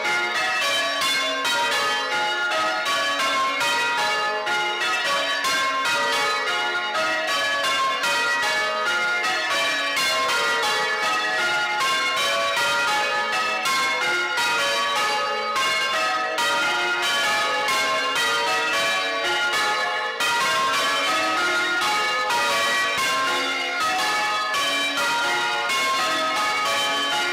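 A ring of church bells hung with wheels for full-circle ringing, rung one after another in a continuous, even sequence of strikes in the English change-ringing style.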